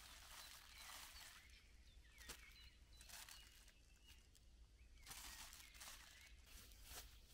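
Faint forest ambience: small birds chirping now and then, with patches of soft rustling hiss that start and stop abruptly and a few light clicks.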